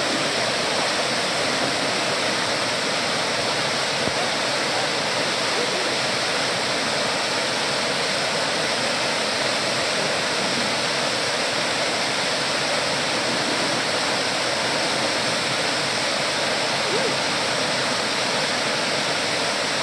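Waterfall in heavy flow, water pouring over rocks in a steady, unbroken rush.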